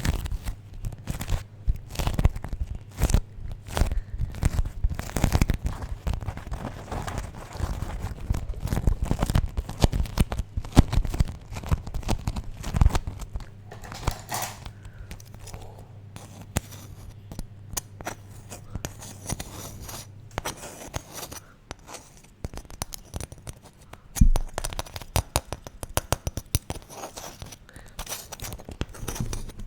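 Beeswax food wraps crinkled and pulled apart in the hands, the warmed wax sticking and peeling with dense, irregular crackling.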